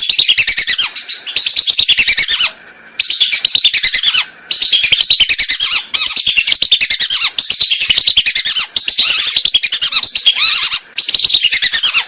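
Lesser whistling ducks calling: a rapid stream of high whistled notes, each falling in pitch, coming in loud runs broken by short gaps. It is a recorded call played as a hunting lure.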